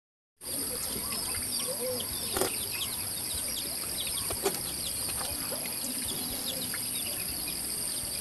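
Rural outdoor ambience that starts abruptly about half a second in: a steady high-pitched drone with many short chirping calls, birds among them, and two sharp clicks.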